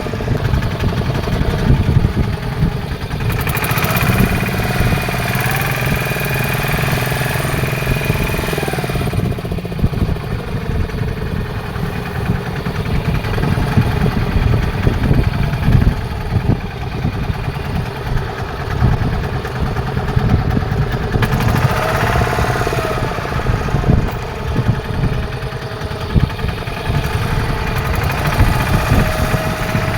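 A fishing boat's engine running steadily at a constant speed.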